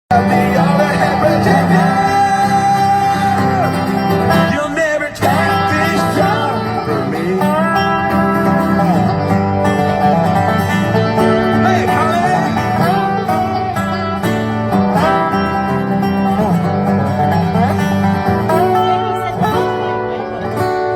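A band playing a country-style instrumental intro, with plucked guitar and a melodic lead line over a steady bass.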